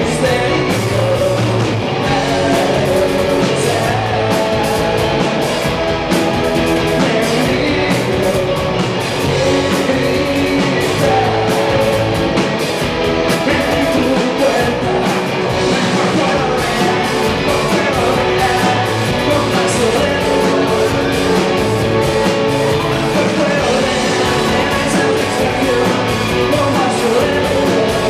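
A live rock band playing loud, with electric guitars and a male lead singer.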